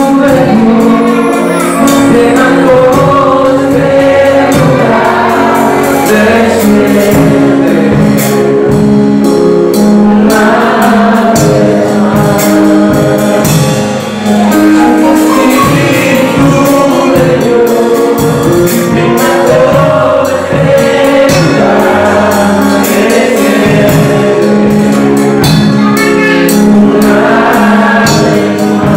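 Live gospel worship band: a man singing lead into a microphone with backing singers, over drums and keyboard.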